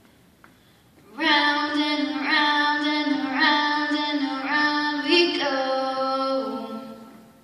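A girl singing unaccompanied into a microphone. She comes in about a second in with a slow phrase of long held notes that steps down in pitch toward the end, then fades out.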